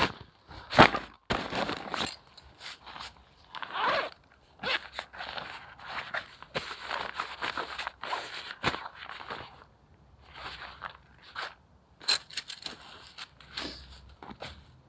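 Irregular rustling and crunching: a quick run of short, uneven scrapes and crackles, the loudest near the start.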